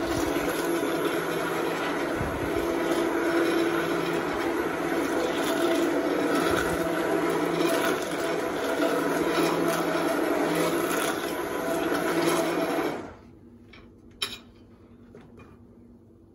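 Handheld immersion blender running in a saucepan of cream sauce, blending in melting cheese. It runs steadily, then cuts off sharply about three seconds before the end, followed by a single light click.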